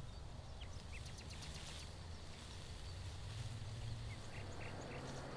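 Faint outdoor ambience with a steady low hum and a few short, high bird chirps in small groups, early on and again near the end.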